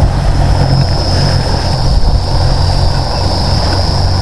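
Fishing kayak under way across calm water: a steady low hum with a thin, constant high whine over an even hiss of wind and water.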